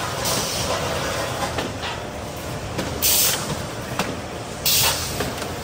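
Automatic corrugated-carton folder gluer stitcher running, a steady mechanical clatter. Short loud hissing bursts come about three and about four and a half seconds in, with a few sharp clicks between them.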